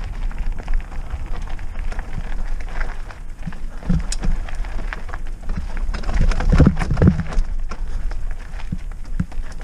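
Trek Roscoe 6 hardtail mountain bike riding down a dirt and root singletrack: tyres running over loose dirt and small rocks, with a dense patter of knocks and rattles from the bike over bumps, thickest a few seconds before the end, over a low steady rumble.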